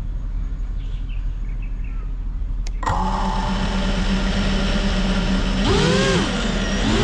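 FPV whoop drone's motors arm with a click about three seconds in, then spin at a steady idle hum. Near the end the throttle is blipped up and down, then the pitch climbs again as the drone lifts off. Before the motors start there is only a low background rumble with faint bird chirps.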